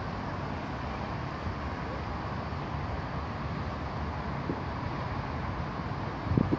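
Steady outdoor city background, a low rumble with a brief dull bump near the end.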